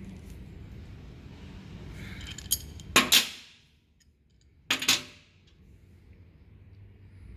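Metal parts or tools clinking against a hard work surface: a light clink about two and a half seconds in, a loud clank with a brief ring about a second later, and a second loud double clank near five seconds.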